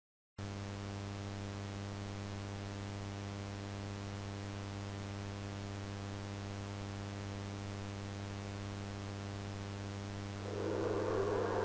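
Steady electrical mains-type hum with hiss, cutting in suddenly out of silence. About ten seconds in, a louder rushing rumble rises over it.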